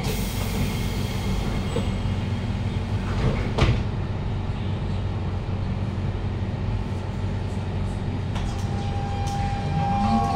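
Siemens C651 metro train's doors sliding shut at the start, with a sharp knock a few seconds later, over the steady low hum of the carriage at rest. Near the end steady electric tones from the traction equipment come in and a low whine starts to rise as the train begins to pull away.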